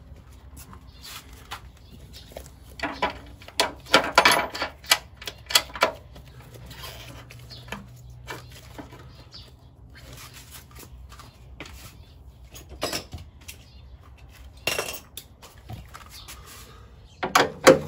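Irregular knocks and clatter of parts and tools being handled while the front module assembly of an electric car's traction battery pack is fitted. The knocks come in bunches, with a cluster a few seconds in and the loudest near the end.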